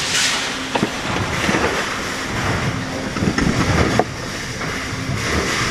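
Steady workshop machinery din with a faint low hum, and a few sharp metallic clicks from handling parts, one about a second in and one about four seconds in.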